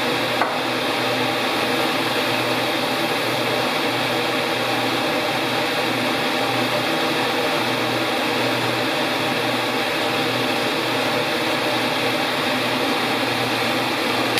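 Steady, loud mechanical whirring noise with a low hum that swells and fades slowly; it cuts off abruptly at the end.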